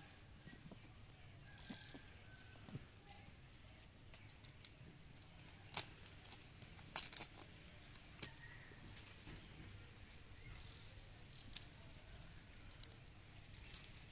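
Faint, sharp clicks and crackles of dry bamboo twigs and leaves as a baby monkey tugs and chews at them, about half a dozen spread through the second half. Two short high chirps, one early and one past the middle.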